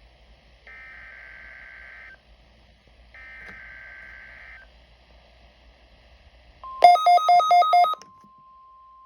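NOAA Weather Radio Required Weekly Test: three bursts of warbling SAME digital header data, each about a second and a half long with short pauses between. Near the end a steady high tone begins, and over its first second a run of about six loud, rapid beeps sounds.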